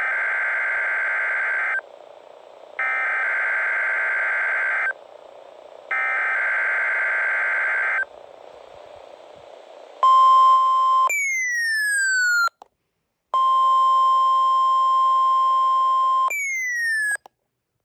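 NOAA Weather Radio Emergency Alert System test: three bursts of buzzing SAME digital header data, each about two seconds long with short pauses between. Then, after a short pause, the steady 1050 Hz warning alarm tone begins, broken twice by short falling-pitch sweeps and brief dropouts.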